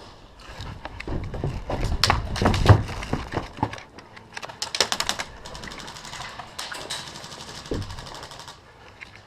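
Airsoft guns firing. Scattered single shots come about two to three and a half seconds in, then a quick burst of about eight shots around the middle.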